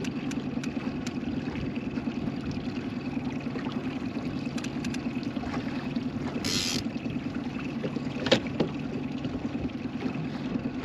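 Boat motor running steadily at trolling speed, a low, even drone. A brief hiss comes about six and a half seconds in, and a sharp knock a little after eight seconds.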